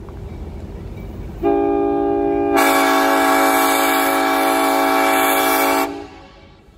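Diesel locomotive air horn, on the Clinchfield 800 EMD F7A, sounding one long multi-note chord of about four and a half seconds that grows fuller and louder partway through, then cuts off. Before and after it, the low rumble of the approaching locomotive.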